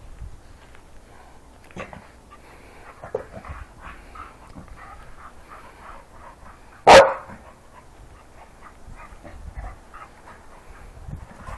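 A dog barks once, loud and short, about seven seconds in, over faint scattered rustles and clicks.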